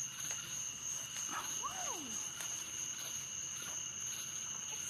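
Night insect chorus of crickets and other insects trilling steadily at two high pitches, with a faster pulsing above them. About a second and a half in comes a short voice-like sound that rises and then slides down in pitch.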